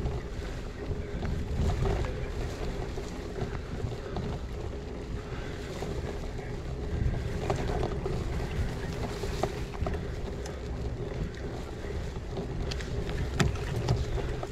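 Wind buffeting a GoPro Hero8's microphone as a gravel bike rolls along, over a steady low rumble and hum from the ride. A few sharp clicks and rattles come through near the end.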